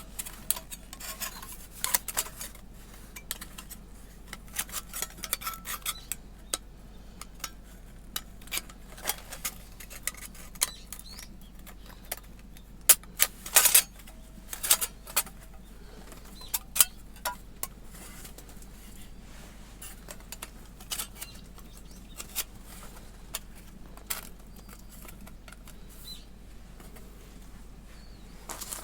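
Thin titanium fire-pit panels clinking and tapping as they are handled and fitted together: a long run of irregular light metallic clicks, with a louder cluster about halfway through.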